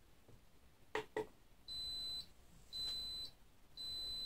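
Two short clicks about a second in as the buttons on an Anycubic wash-and-cure station are pressed, then the station beeps: high, even beeps of about half a second, roughly one a second, three in all. The beeping is a warning that the owner traces to the cover not sitting properly on the unit.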